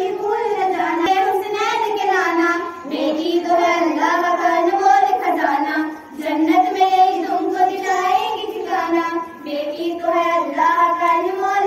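Girls' voices singing a song together in Urdu, a slow melody with long held notes and short pauses for breath.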